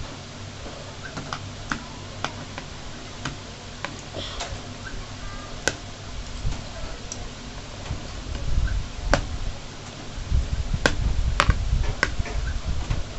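Metal spoon and fork clinking and scraping against a plastic plate while cutting and scooping fried noodles: sharp single clicks every second or so, a few louder ones in the second half. Under them a low, uneven rumble that grows louder from about two-thirds of the way in.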